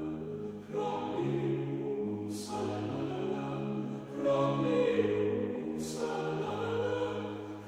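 Background music of slow, held choir-like chords that change about once a second, with two short hissing swells, about two and a half and six seconds in.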